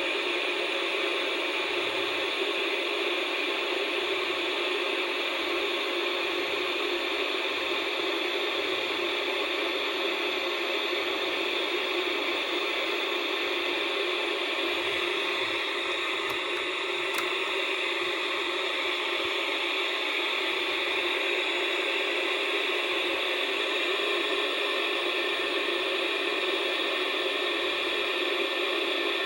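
Steady static hiss from the small built-in speaker of a portable black-and-white CRT TV/radio, set where there is no clear signal. It is thin, with no bass.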